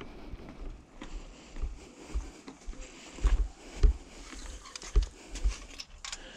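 Mountain bike rolling slowly over paving stones: irregular dull knocks and rattles from the bike and camera mount as it goes over bumps, loudest a little past three seconds and again around five seconds in.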